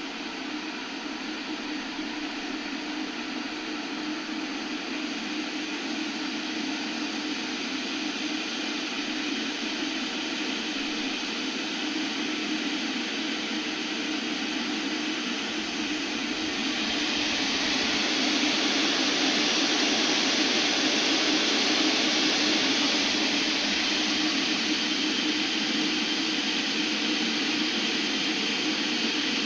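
Aigostar King stainless steel electric kettle heating a litre of cold water: a steady rushing hiss that slowly grows, then swells louder and brighter about 17 seconds in as the water heats toward the boil.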